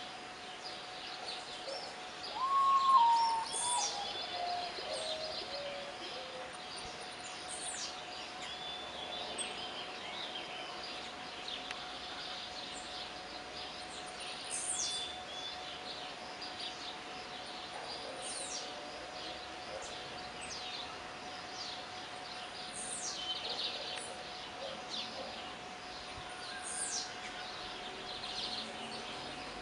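Common potoo singing a single phrase about three seconds in: a loud series of whistled notes that step down in pitch. Around it, other birds or insects give repeated short high chirps over a steady faint hum.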